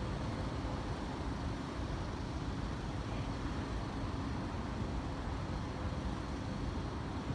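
Steady low rumble of vehicle engines with a faint even hum, unchanging throughout.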